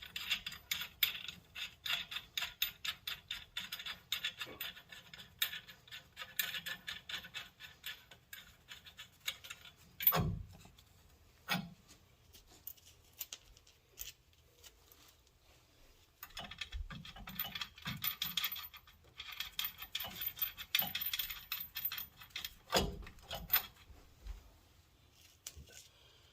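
Hand ratchet wrench clicking in quick, steady runs as nuts are run down on the truck's rear suspension hardware, with a few single metal knocks about ten seconds in, again shortly after, and near the end.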